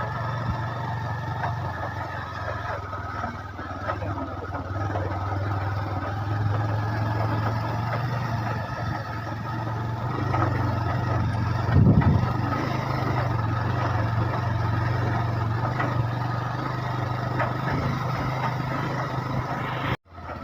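Vehicle engine running steadily under way on a rough dirt road, with a louder knock about twelve seconds in; the sound drops out briefly near the end.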